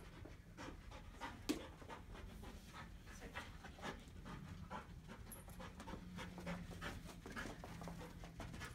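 A dog panting in quick, even breaths as it works a scent search, with one sharp click about a second and a half in.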